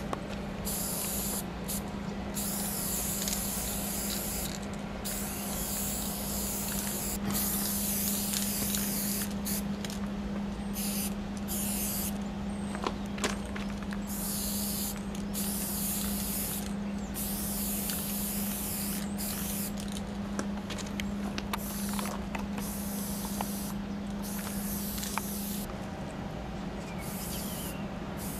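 Aerosol spray-paint can hissing in repeated bursts of a few seconds each, with short pauses between, as fill paint is sprayed onto a freight car's side. A steady low hum runs underneath and stops shortly before the end.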